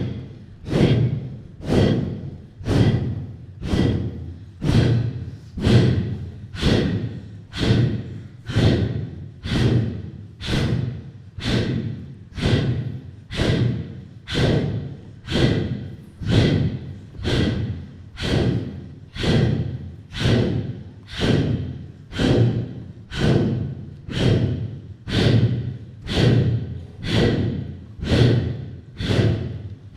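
Forceful breaths pushed out in a strict, steady pulse of about one a second, each starting sharply and dying away quickly.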